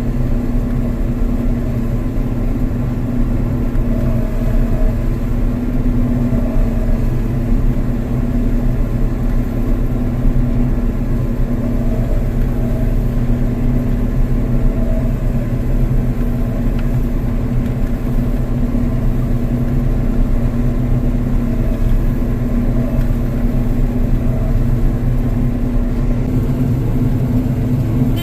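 Combine harvester running steadily under load while harvesting soybeans: a constant low engine rumble with a steady hum.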